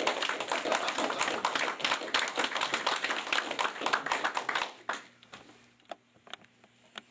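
Audience applauding, dying away about five seconds in, followed by a few faint isolated clicks.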